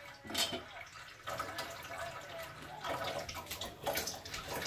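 Kitchen knife cutting daikon radish on a cutting board: a sharp knock about half a second in, then a few softer knocks and clatters over a faint watery hiss.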